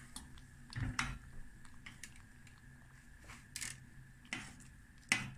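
A handful of light, separate clicks and knocks of kitchen utensils being handled, spaced irregularly about a second apart.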